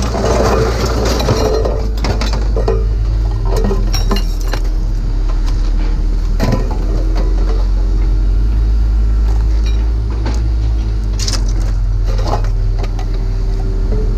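Scattered clinks and clanks of hard scrap being handled, over a steady low hum.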